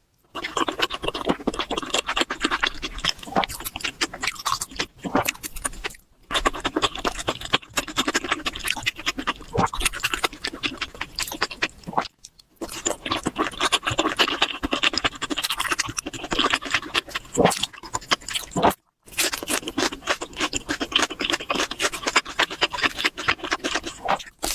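Close-miked eating of chicken: wet chewing, biting and crackly mouth sounds, broken by a few sudden short silences.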